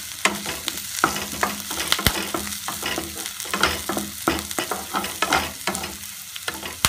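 Wooden spatula stirring and scraping sliced onions, green chillies and curry leaves around a nonstick pan, knocking against the pan, over a steady sizzle of frying in ghee. One sharper knock comes about two seconds in.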